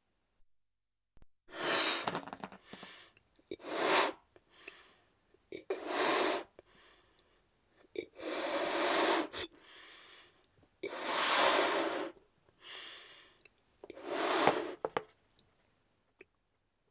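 A balloon being inflated in repeated rushes of air, about six hissing puffs each half a second to a second long, with short pauses between them.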